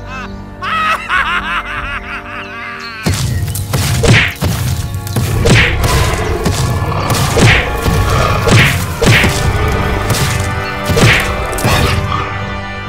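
Background music, then about three seconds in a run of cartoon fight sound effects over it: heavy hits with swishes, roughly one every second or two.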